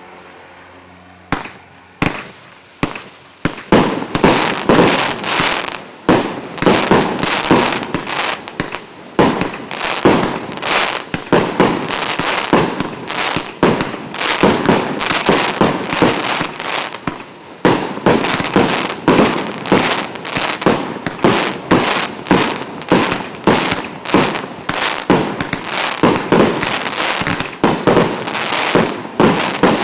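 Consumer firework cake firing: a few single shots in the first few seconds, then a rapid, unbroken string of launches, about two to three a second, with crackling stars between them.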